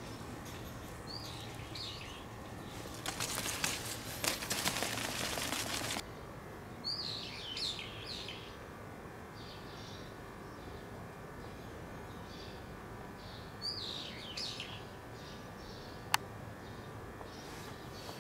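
Small birds chirping, short high calls heard a few times over steady outdoor background noise. A burst of rustling noise runs from about three to six seconds in and stops abruptly, and a single sharp click comes near the end.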